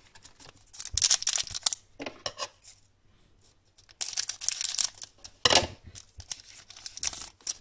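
A trading card pack's wrapper being torn open and crinkled, in several short bursts of tearing and rustling, the loudest about five and a half seconds in.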